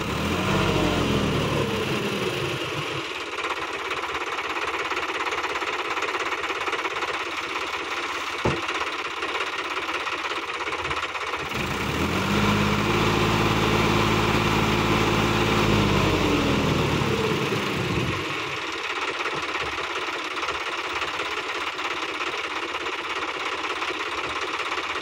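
Sonalika DI-50 RX tractor's diesel engine running, its revs falling back to idle in the first few seconds. It is revved up again for about four seconds around the middle, then falls back to idle, with one sharp click about eight seconds in.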